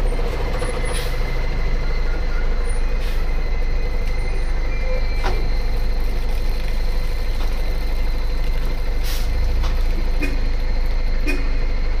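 Municipal water tanker truck running close by, a steady low engine rumble with a thin steady whine over it.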